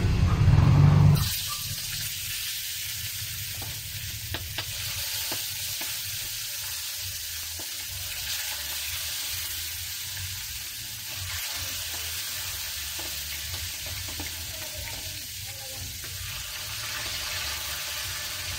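Milkfish (bangus) pieces frying in smoking-hot cooking oil in a frying pan: a steady sizzle with scattered small pops and crackles that starts abruptly about a second in, after a loud low rumble.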